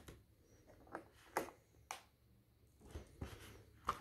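Hands handling a plastic clamshell packaging tray and its paper inserts: a handful of faint, separate clicks and light rustles, more of them near the end.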